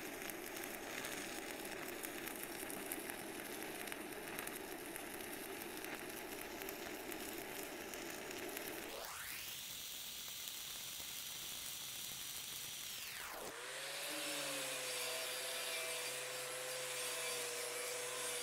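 Stick-welding arc of a 3/32 in 7018 rod running at about 91 amps, a steady crackling sizzle as a cover pass is laid. About 13 seconds in, an angle grinder fitted with a wire brush spins up and runs with a steady whine.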